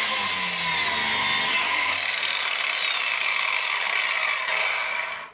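Large DeWalt angle grinder working a steel plate, a loud steady grind with a high whine. The whine's pitch falls slowly as the grinder winds down after its breaker trips, and the sound stops near the end.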